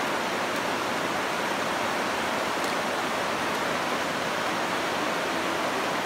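Steady rush of the shallow Virgin River flowing over rocks in a narrow canyon.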